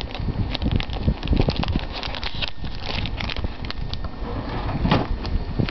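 Rummaging in a drawer and pulling out a plastic snack packet: a dense run of rustles, crinkles and small clicks over rumbling handling noise on the microphone.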